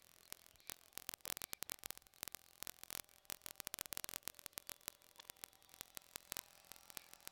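Faint, irregular crackling clicks over a low steady hiss: static-like noise in the recording, with no motor or voice heard.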